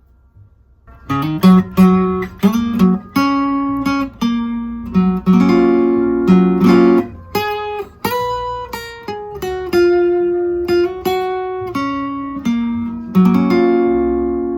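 Acoustic guitar played with a pick: a melodic run of picked notes and short strums, each attack bright and clicky up top, starting after a brief pause about a second in.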